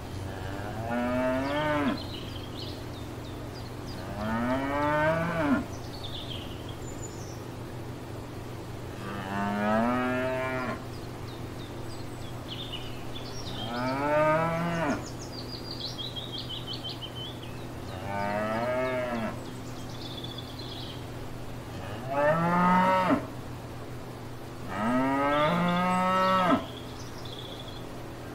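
Cows mooing, seven long moos a few seconds apart, each lasting one to two seconds and rising in pitch as it starts.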